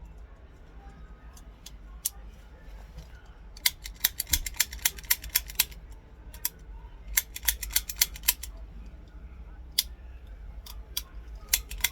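Small toy cap gun's mechanism clicking sharply: quick runs of several clicks a second, with single clicks between. There is no bang: the caps are not going off.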